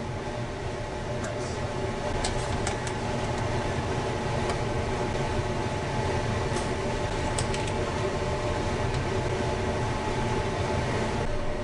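Broth at a rapid simmer in a stainless steel pot, a steady bubbling rumble, with a few light clicks as a wire-mesh skimmer touches the pot.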